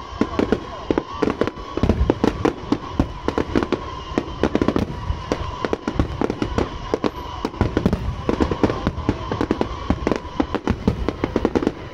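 Aerial firework shells bursting in a rapid, unbroken barrage of bangs and crackles.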